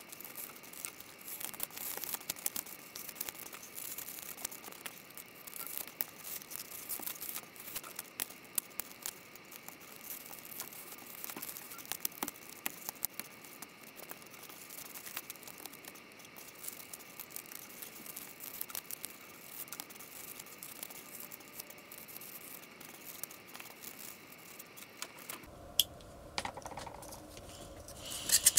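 Expanded polystyrene foam being cut with a utility knife and broken apart by hand: a continuous run of small crackles, snaps and scrapes. A few louder scrapes come near the end.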